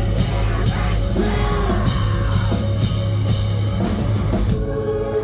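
Rock music played live, with drum kit and a sung vocal line. About four and a half seconds in, the drums and cymbals drop out, leaving a single held note.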